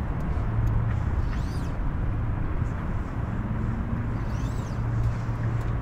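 Steady low engine hum, with two brief high chirps that rise and fall, about a second and a half and four and a half seconds in.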